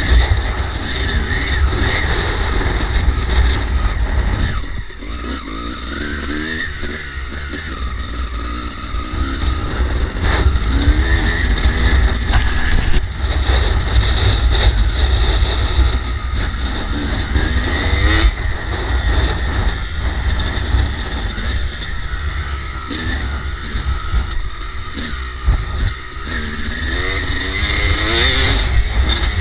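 Kawasaki KX250 two-stroke dirt bike engine revving up and down while being ridden, over a heavy rumble of wind on the microphone. The engine note dips briefly about five seconds in and again near the end.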